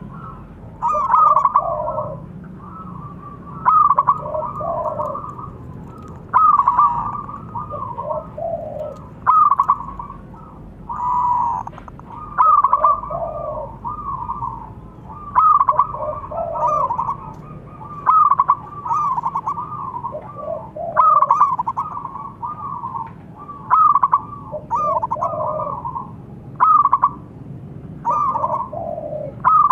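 Zebra doves cooing: a short, rapid coo phrase repeated every two to three seconds, with lower coos in between.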